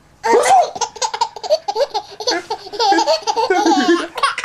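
Baby laughing hard in quick, repeated bursts of high-pitched belly laughter, set off by a sneeze.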